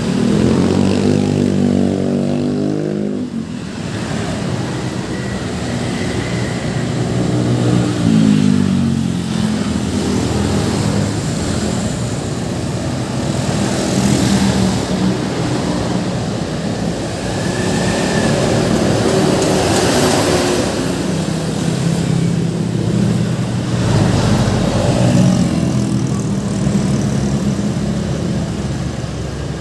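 Busy road traffic passing close by: vehicle engines running and pulling away, with heavy engine drones swelling near the start, around eight seconds in and again near the end. No horn is heard.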